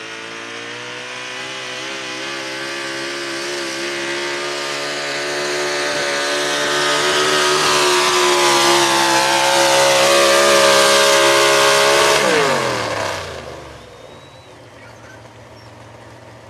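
Square-body Chevrolet pulling truck's big Chevrolet engine running hard under load as it drags the sled, climbing slowly in pitch and getting louder for about twelve seconds. Near the end the throttle is chopped: the pitch falls quickly and the engine drops to a much lower level, ending the pull.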